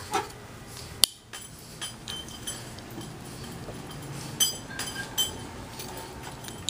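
Folding knife handled in the hand: a few sharp metal clicks and light clinks with a brief ringing, the sharpest click about a second in.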